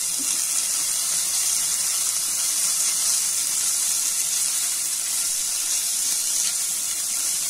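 Paneer cubes frying in melted butter in a pan, a steady high sizzle.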